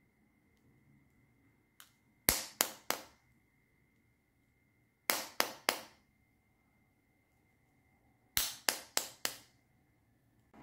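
The hard candy shell of a candied apple being struck and cracked: three quick runs of three or four sharp cracks, each dying away fast, a few seconds apart.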